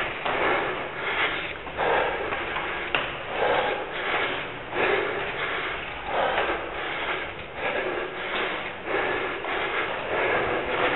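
A stair runner's hard, rhythmic breathing close to the microphone, about one and a half breaths a second.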